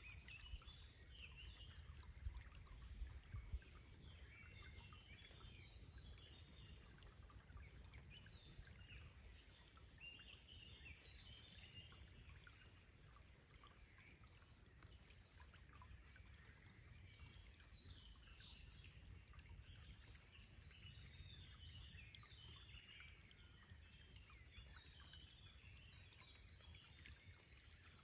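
Faint birdsong, many short chirps and trills scattered throughout, over the low steady rush of a forest stream. A few brief low bumps come about two to three seconds in.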